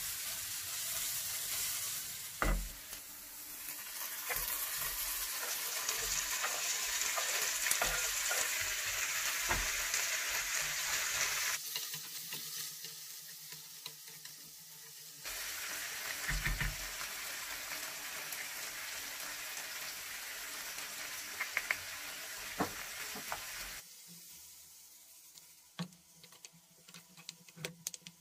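Diced onion, peppers and tomatoes sizzling in a frying pan as they are stirred and scraped with a spoon, with occasional knocks against the pan. The sizzle drops away twice for a few seconds.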